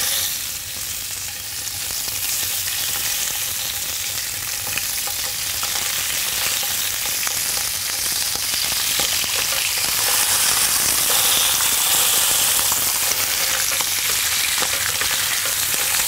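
Herring fillets frying skin side down in smoking-hot oil: a steady sizzling hiss with fine crackles, growing slightly louder as more fillets are laid in the pan.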